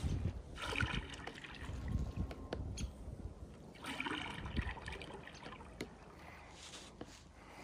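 Paddle strokes in lake water: the paddle blade dips and pulls with a splash, and water trickles off it, three strokes about three seconds apart.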